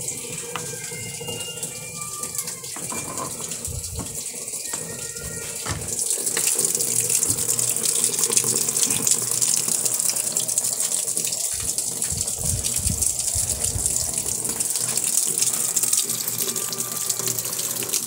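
Water pouring into the tub of a top-loading automatic washing machine through its inlet valve, a steady hiss that grows louder about six seconds in. The machine is filling to its low water level before the wash starts.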